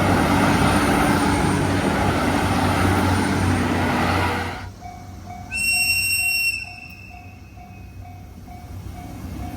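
A train passing with loud running noise that cuts off suddenly about four and a half seconds in. After that, a level crossing bell rings at about three strokes a second, with a single high train horn blast of about a second over the first part of the ringing.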